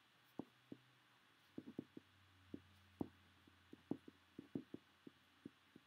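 Faint, irregular taps and ticks of a ballpoint pen writing on a sheet of paper on a desk, about fifteen short strokes.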